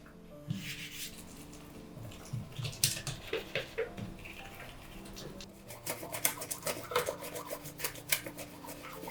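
Quick small clicks, taps and rubbing of objects being handled, busiest in the second half, over soft background music.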